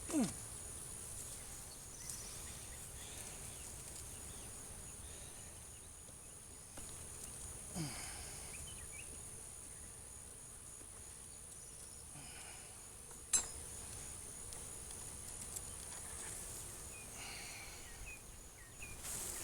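A steady, high, thin chorus of insects, with two short falling buzzes and one sharp click about two-thirds of the way through.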